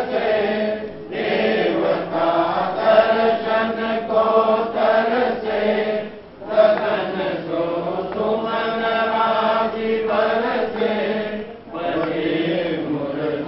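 Hindu devotional chanting by voices in unison, sung in long phrases of about five seconds with short breaks between them.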